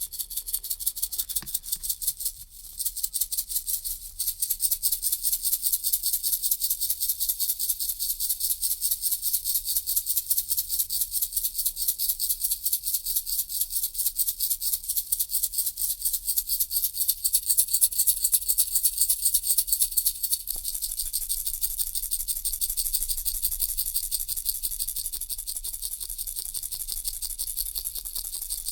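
A baby rattle being shaken steadily in a quick, even rhythm of about five shakes a second. Its bright, hissy rattle of small beads sits high in pitch.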